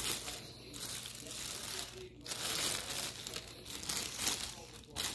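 Thin plastic shopping bags being handled and crumpled, crinkling and rustling in uneven bursts, with a short break about two seconds in.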